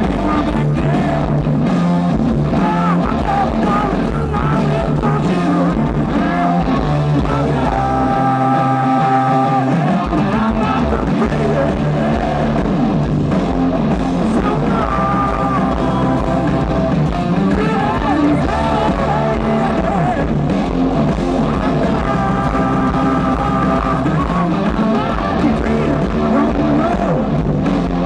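Live hard rock band playing loudly through a stage PA: distorted electric guitars, bass, drums and keyboard, steady throughout.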